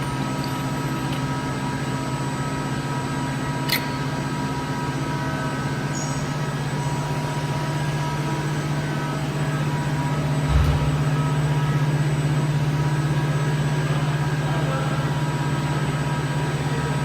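Steady machine hum with several constant tones, loud and unchanging, from workshop machinery. A sharp click sounds about four seconds in and a dull knock about ten and a half seconds in.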